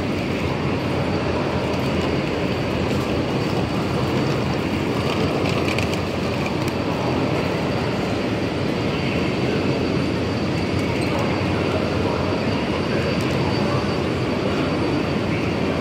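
Steady hubbub of a busy railway station platform under a large glass-and-steel train shed: the mixed noise of passing travellers and their rolling suitcases, with no single sound standing out. A faint steady high-pitched tone runs under it.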